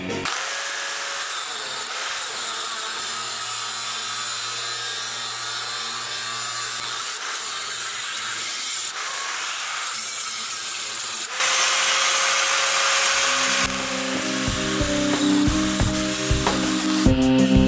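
Electric angle grinder with a thin disc grinding into a steel moped swingarm, cutting away its weld spots, with a long steady grinding hiss. About 11 s in the disc bites harder and the sound turns louder and brighter for a couple of seconds, then eases. Background music with guitar and a beat fades in near the end.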